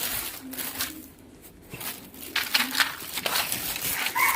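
A dove cooing repeatedly, short low coos about a second apart, with some rustling and crinkling in the middle. A rooster starts to crow just before the end.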